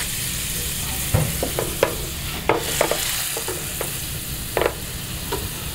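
Butter sauce sizzling and bubbling as it reduces in a stainless steel sauté pan over a portable butane burner. A few short knocks and scrapes come as the pan is handled on the burner.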